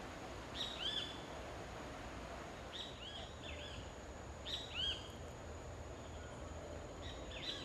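Wild bird calling in tropical forest: small groups of short notes that rise and fall, repeated every two seconds or so. A steady high-pitched tone and a hiss lie beneath.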